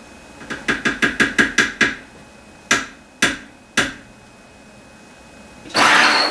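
A metal spoon knocked against a plastic food processor bowl to shake off almond butter: about ten quick taps, then three slower knocks. Near the end the food processor's motor starts and runs with a steady whirring and a thin high whine.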